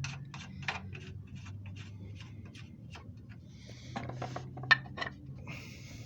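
Irregular metallic clicks and taps of a nut and wrench being worked onto an engine mount bolt, with one sharp clink about three-quarters of the way through and a short scrape near the end.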